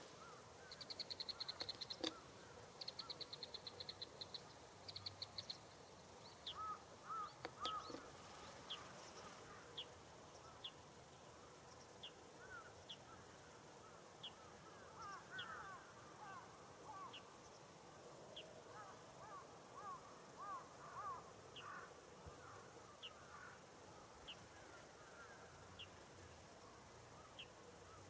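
Faint, distant carrion crows cawing in short series of several calls, over high insect-like chirping: rapid trills in the first few seconds, then single short chirps repeating every second or so.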